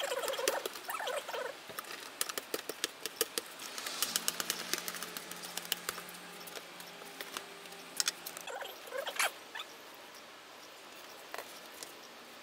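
Corrugated plastic sheet being cut with a utility knife and scissors: rapid runs of crackling clicks and scrapes as the blades work through the fluted plastic, dying away after about nine seconds.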